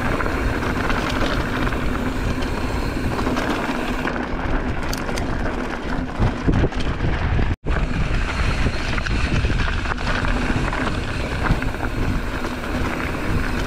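Steady rush of wind over the microphone with tyre rumble from a mountain bike riding a dirt trail. The sound cuts out for an instant about halfway through.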